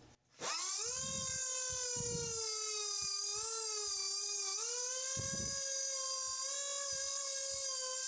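Small air grinder with a 1/16-inch diamond burr spinning up about half a second in to a steady high whine. Its pitch sags a little mid-way while short grinding rasps come and go as the burr widens the stop-pin slot in a steel folding-knife part.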